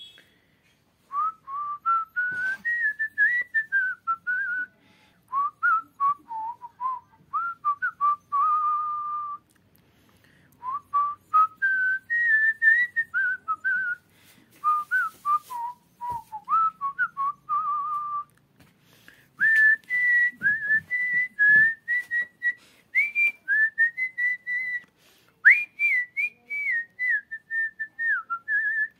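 A man whistling a tune through pursed lips, one clear note at a time, in phrases broken by short pauses.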